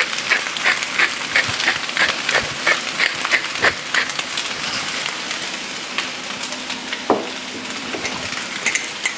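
Hand pepper mill grinding in short rasping twists, about three a second, over fried rice sizzling in a pan. The grinding stops about four seconds in, leaving the steady sizzle.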